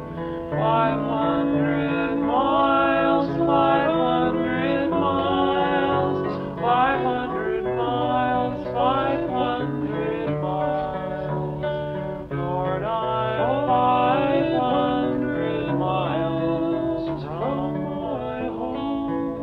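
Background music: a song led by plucked guitar, with notes sliding in pitch.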